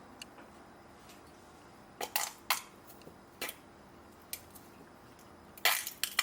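Kitchen clatter: a series of short clinks and knocks of dishes and utensils, a few in quick succession about two seconds in and the loudest cluster near the end.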